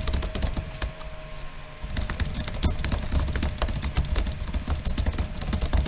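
Typing on a computer keyboard: a fast, irregular run of key clicks, over a steady low rumble that grows louder about two seconds in.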